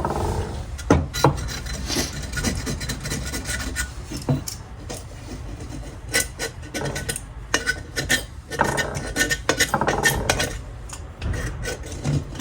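Scraping and rubbing strokes on a diesel heater's burner part as it is cleaned of diesel soot, in irregular strokes.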